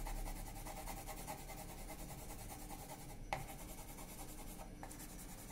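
A soft 6B graphite pencil shading on drawing paper: a faint, quick back-and-forth scratching of many short strokes, with one sharp tick about three seconds in.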